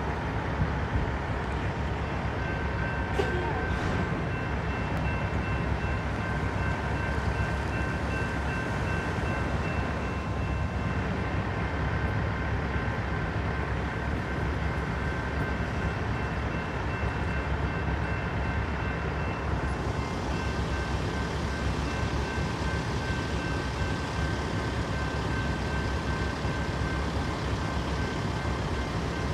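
Railroad grade-crossing warning bell ringing steadily over a constant low rumble. The ringing pauses for about ten seconds midway, then resumes.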